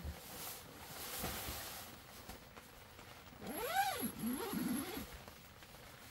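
Bedding rustles as a sleeping bag is spread over an air mattress. A little past halfway comes a short cry that rises and then falls in pitch, followed by a few lower, shorter pitched sounds.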